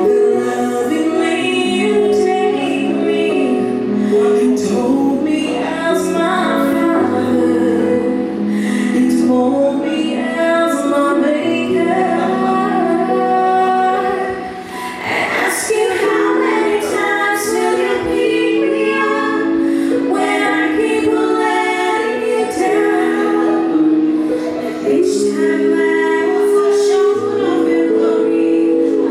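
A vocal group singing a gospel praise song in harmony, several voice parts holding notes together, with a brief break between phrases about halfway through.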